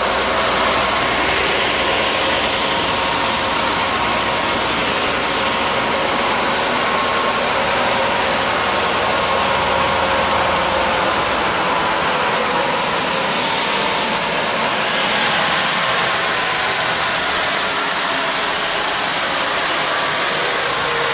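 SandingMaster KSB-900 wide belt sander running: a steady whirring rush of its motors and moving abrasive belt, with a faint hum under it. The hiss turns sharper about 13 seconds in.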